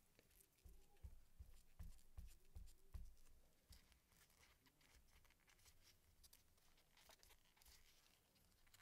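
Faint handling sounds of gloved hands squeezing and kneading a soft silicone mold filled with liquid polyurethane resin to work out air bubbles: light rubbing and crinkling, with a run of about seven soft low thumps in the first three seconds.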